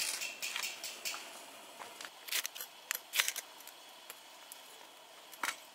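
Short, sharp scrapes of a ferrocerium fire-starter rod being struck, throwing sparks onto tinder to light a fire in a steel fire stand. There are a few light ones, two strong strikes in the middle, and one more near the end.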